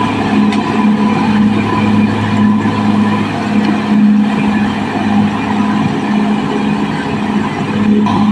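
Caterpillar D6R XL bulldozer's diesel engine running steadily under work, a low drone that pulses slightly with mechanical clatter over it.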